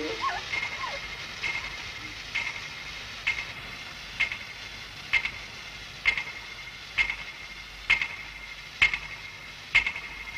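Clockwork trick clock ticking steadily about once a second, each tick a sharp click with a short metallic ring, starting about a second and a half in. The clock is a timer counting toward the moment its hand sets off coloured firework smoke.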